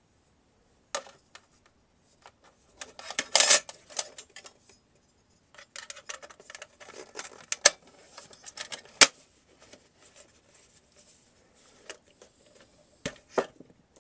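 Small metal tools and parts being handled during reassembly of a DVD recorder: irregular clicks and short clinking rattles, the loudest clatter a few seconds in, with a few single sharp clicks later.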